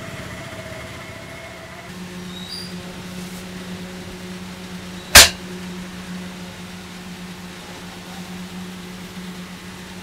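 A steady low hum over background noise, with one sharp, loud click about five seconds in.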